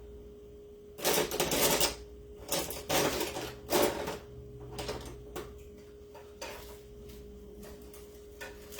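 Clattering and rattling of small hard craft tools being rummaged through and handled, loudest in the first few seconds, then a few lighter clicks. A steady faint hum runs underneath.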